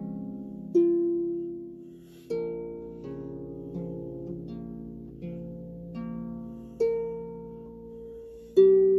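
Solo harp played slowly: plucked notes and chords ring out and fade, with a few stronger plucks that start new phrases.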